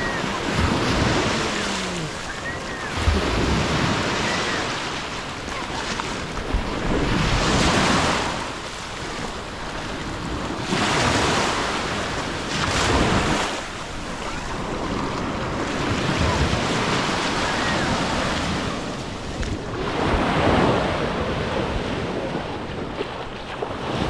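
Ocean surf washing onto the shore, rising and falling every few seconds, with wind buffeting the microphone.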